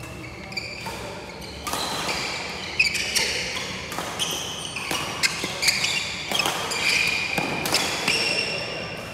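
Badminton rally: repeated sharp racket strikes on the shuttlecock mixed with short, high squeaks of court shoes on the wooden floor, starting about one and a half seconds in.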